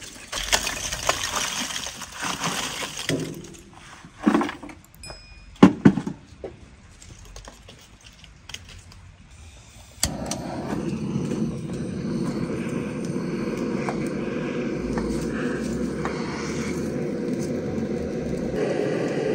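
Lumps of lump charcoal poured into a steel-barrel grill, rattling and clattering, with a few loud knocks of pieces landing about four and six seconds in. From about halfway through, a steady low rushing noise.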